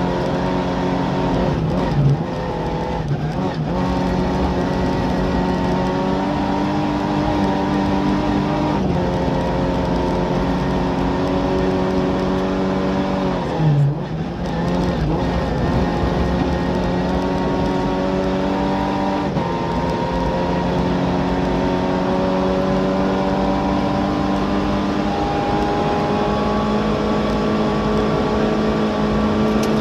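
In-car sound of a Skoda Favorit Group A rally car's four-cylinder engine running hard at high revs on a rally stage, its pitch climbing slowly as the car gathers speed. There is a brief dip in revs about fourteen seconds in, and a rush of tyre and road noise underneath.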